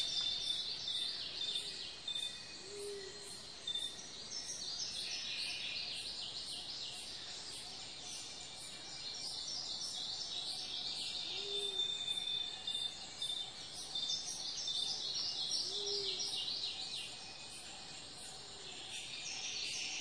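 Rainforest ambience: a dense chorus of insects trilling in rapid pulses, swelling and fading over several seconds, with a thin steady high whine. A short low call sounds several times, a few seconds apart.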